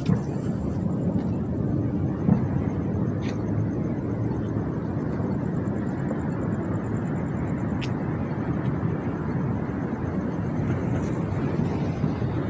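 Countless distant fireworks going off across the city, merging into a constant low roar like rolling thunder, with a few sharper nearer cracks, the loudest about two seconds in.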